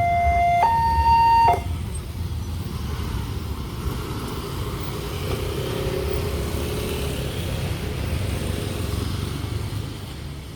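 Railway level-crossing warning siren sounding a two-tone alarm that alternates between a lower and a higher pitch, then cuts off about a second and a half in. A steady low rumble follows.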